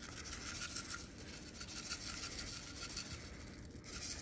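Dry uncooked Texmati brown rice rustling and scraping as it is spread over beans with a metal spoon in a glass baking dish.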